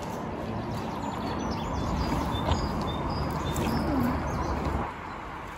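Outdoor ambience: a steady low noise with a few faint bird chirps over it. The low noise drops away sharply near the end.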